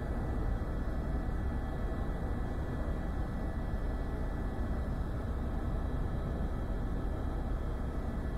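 Helicopter in flight, heard from aboard: a steady, low rotor and engine drone with a thin constant whine running through it.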